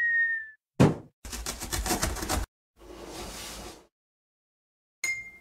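Cartoon sound effects from an animated intro. A short high whistle slides slightly down, then a sharp knock, about a second of fast rattling, and about a second of hiss. Near the end comes a click with a brief high tone.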